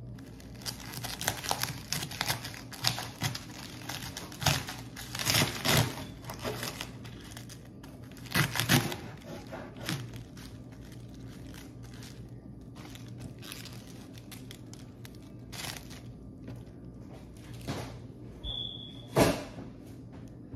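Plastic packaging crinkling and rustling as it is handled, in irregular bursts that come thickest in the first half. A brief high tone sounds near the end, over a steady low hum.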